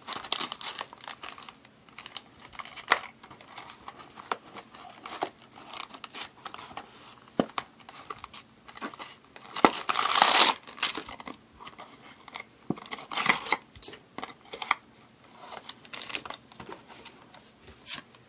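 Cardboard toy box being handled and opened, with its paper instruction sheet and plastic bag of parts crinkling and rustling, and many small taps and clicks. The loudest stretch is a scratchy rush about ten seconds in, as the contents are worked out of the box.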